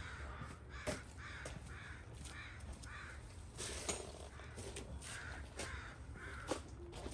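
A bird faintly giving harsh repeated calls: a run of four about half a second apart, then a run of three, with a few faint clicks between.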